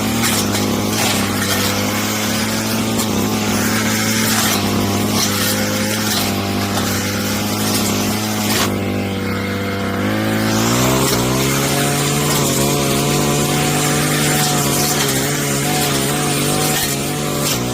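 Brush cutter engine running steadily while its steel S-shaped blade cuts mulberry branches, with repeated sharp cracks as the blade chops through wood. About ten seconds in, the engine speeds up and holds at a higher pitch.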